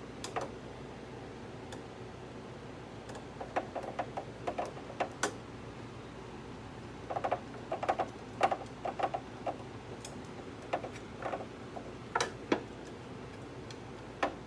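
Light clicks and ticks in irregular clusters, with gaps of a second or two between them: screws being turned by hand to fasten a metal bar under the spool holder of an embroidery machine.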